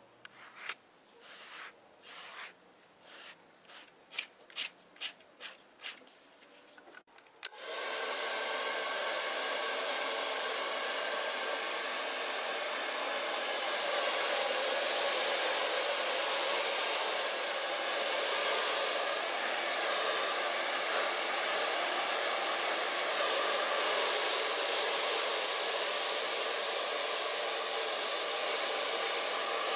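A run of short rubbing strokes of a pad over leather, coming quicker, then a hand-held hair dryer switches on about seven seconds in and runs steadily, blowing over the freshly painted leather to dry it.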